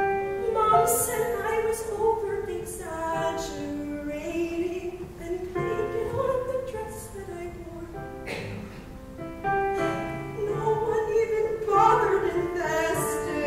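Women singing a musical-theatre number with keyboard accompaniment, in long held notes.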